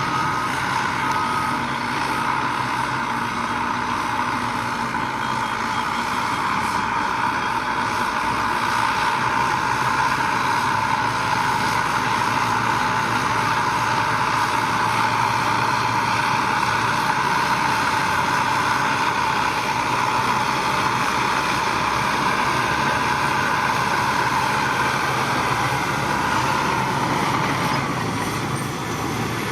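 Heavy construction machinery running steadily, with a reversing alarm beeping for the first second or so.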